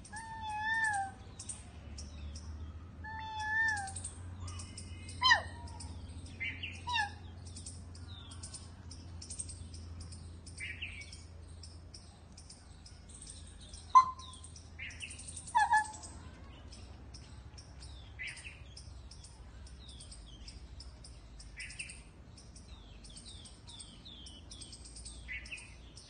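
A cat meowing twice in the first few seconds, each a short wavering call, over continuous high bird chirping and twittering. A few louder, sharp single bird calls stand out, the loudest about halfway through.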